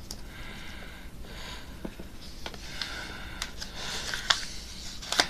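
Sheet of paper being folded and creased by hand into a paper airplane: soft rustling and crinkling with scattered clicks, a fuller rustle about four seconds in, and a few sharp crease clicks at the end.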